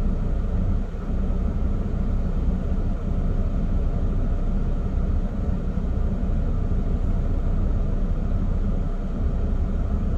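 Steady low rumble of road and engine noise inside the cabin of a 20-year-old Chevrolet Trailblazer as it drives.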